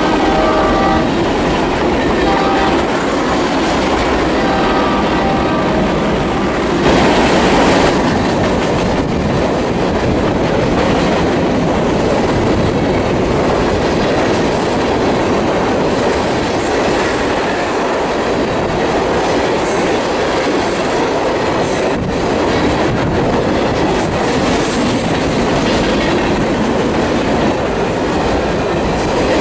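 Freight cars of a Union Pacific manifest train rolling past close by: steady, loud wheel-on-rail noise with clickety-clack as covered hoppers and tank cars pass. The lead locomotive's air horn sounds in the distance at the start and stops about a second in, then comes back more faintly for a few seconds. The rolling noise swells briefly about seven seconds in.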